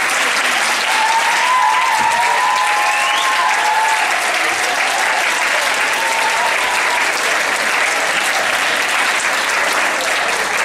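Theatre audience applauding, a steady dense clapping that holds at one level throughout.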